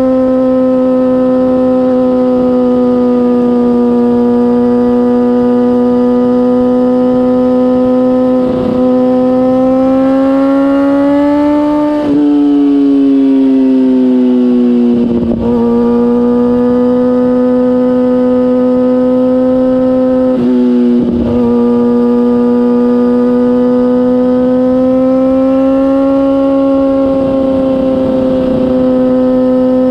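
2004 Kawasaki ZX-6R's inline-four engine through a MIVV GP exhaust, pulling at steady high revs. Its note holds nearly level, climbs slowly, then drops and dips briefly a few times, like shifts or throttle changes.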